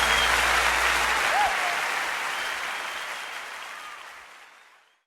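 Audience applauding, with a few whistles, at the close of a live song recording; a low held note stops about a second in and the applause fades out near the end.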